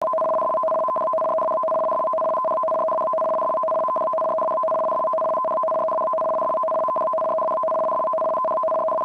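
Japanese emergency warning broadcast (EWS) start signal: a steady data tone that flickers rapidly between two pitches, cutting in suddenly. It is the coded signal that switches on receivers for an emergency warning broadcast.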